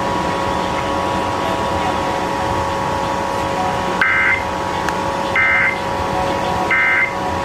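Emergency Alert System end-of-message signal: three short identical bursts of two-tone digital data, about 1.4 s apart, starting about four seconds in over a steady hum. They mark the end of the required monthly test.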